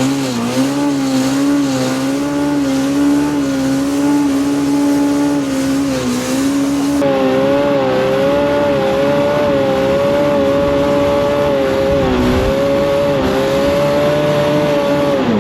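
Polaris RZR Pro R's aftermarket-turbocharged four-cylinder engine held at high revs under heavy throttle as it pushes up a snowy hill. The revs climb right at the start, stay high with small wavers, and fall away near the end.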